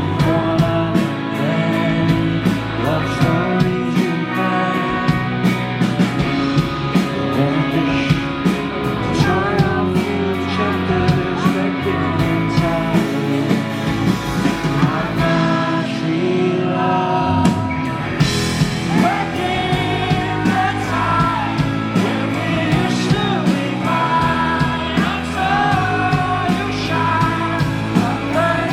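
Rock band playing live, with drums keeping a steady beat on the cymbals under electric guitar and bass, and wavering sung or lead melody lines.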